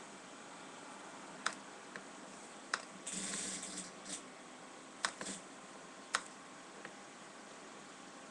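Sparse, separate clicks from a computer mouse and keyboard, about one a second, with a short dense burst of sound about three seconds in.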